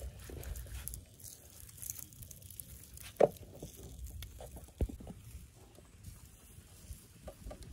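Handling noise from tying a plucked duck and setting it on a bamboo spit: faint rustling and a few soft knocks, two sharper ones about three and five seconds in, over a low rumble.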